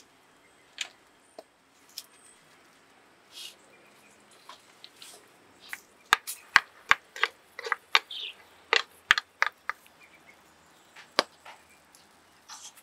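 Irregular sharp clicks and crackles from a steel pot of clams heating over a wood fire, sparse at first and coming thick and fast about halfway through, with a few short higher chirps among them.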